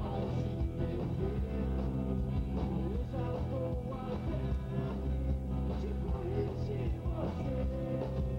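Punk rock band playing live: electric guitar and bass over a steady full-band sound, with a man's voice singing into the microphone at times.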